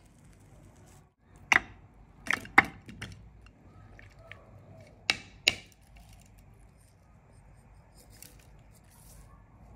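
Sharp knocks of ingredients being dropped into a hard plastic mini chopper bowl: three close together in the first few seconds, then two about half a second apart, followed later by a faint rustle as chilli flakes are shaken in.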